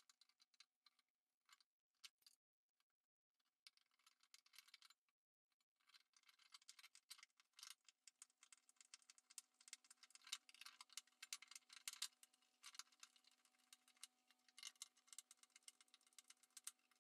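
Faint clicking and rattling as an Allen key turns screws to fix an eyepiece tray to a telescope base, scattered light ticks at first and busier from about six seconds in, with near silence in between.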